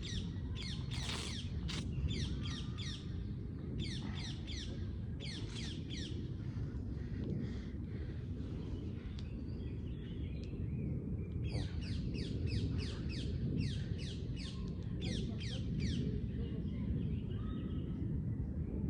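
A songbird singing in bursts of quick, high, downward-sweeping chirps, several groups in a row with a gap in the middle, over a steady low outdoor rumble.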